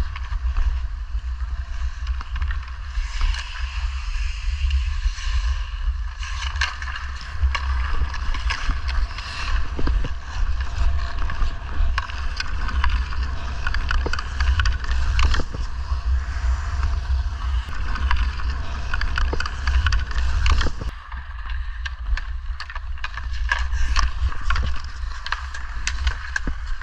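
Hockey skates carving and scraping across outdoor rink ice, with wind rushing over the microphone. Short sharp clicks of a hockey stick on the puck and ice run through it.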